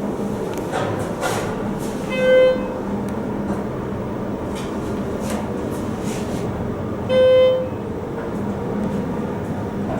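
Schindler 330A hydraulic elevator running, with a steady hum and noise from its machinery. Two short electronic beeps sound, one about two seconds in and one about seven seconds in.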